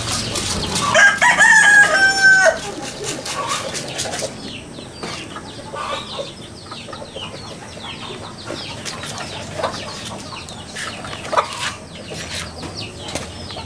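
A rooster crows once about a second in, a loud held call lasting about a second and a half. Afterwards small chicks keep up short, falling peeps among quieter chicken clucks.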